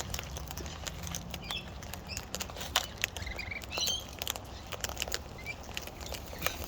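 Wild birds feeding: scattered sharp clicks and taps, with a few short high chirps.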